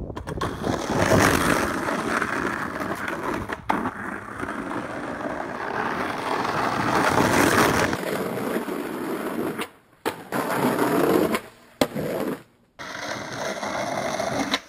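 Skateboard wheels rolling over rough bare rock, a continuous gritty rumble, with a few sharp clacks of the board. The sound breaks off abruptly a few times.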